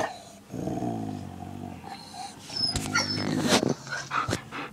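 Dog growling low and drawn out, guarding its toy from another dog, followed by a few sharp knocks and rustles with brief high squeaks.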